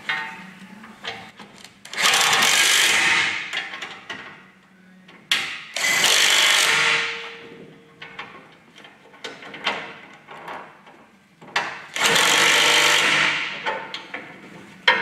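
Cordless impact wrench hammering on nuts of the truck's chassis bolts in three bursts of about two seconds each, with light metal clanks between them.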